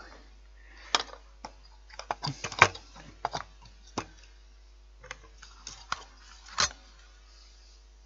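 Irregular clicks and knocks of hands handling the plastic parts of a fan heater: the fan spindle, freshly wrapped in electrical tape, and the fan wheel that goes onto it.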